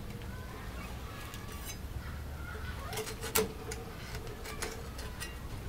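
A few sharp knocks of a cleaver chopping into a boiled goat head on a wooden board, the loudest about three and a half seconds in.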